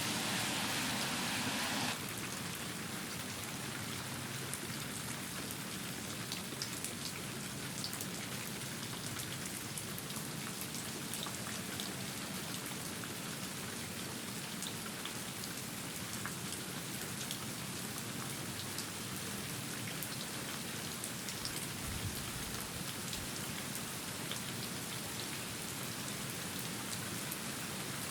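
Steady rain falling, with scattered individual drop taps; the sound steps down in level about two seconds in. A brief faint low rumble comes about twenty-two seconds in.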